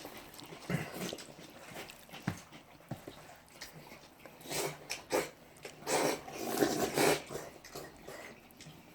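Someone eating jajangmyeon noodles: wet slurping and chewing, in short bursts about halfway through and a longer run a second later.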